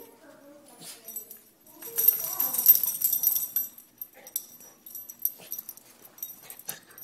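A small dog rubbing its head and rolling on a shaggy rug, its fur scraping and rustling against the carpet, with a few small dog noises; the loudest stretch of scrubbing comes about two seconds in and lasts about a second and a half. It is trying to shake water out of its ears after a bath.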